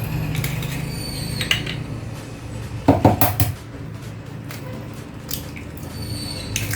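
Eggs being cracked against a mixing bowl and dropped in: a series of taps and clinks, some leaving the bowl ringing briefly, with the loudest cluster about three seconds in.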